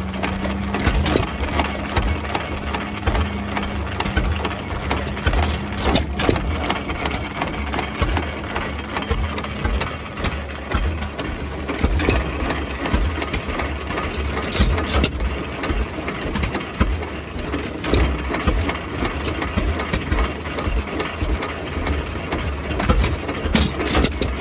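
Single-cylinder 2 hp John Deere Type H (Waterloo Boy) hit-and-miss engine running, firing with a sharp bang at uneven gaps of one to three seconds and coasting on its flywheels in between.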